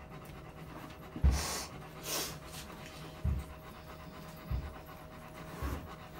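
Rottweiler panting with its mouth open, heavy breaths coming irregularly about once a second.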